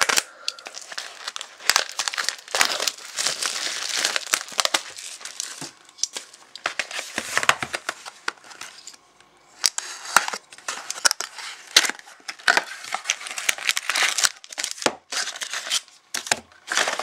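Crinkling and crackling plastic wrapping and cardboard as a sealed box of trading cards is opened by hand and its foil packs are pulled out, with irregular sharp clicks and taps throughout.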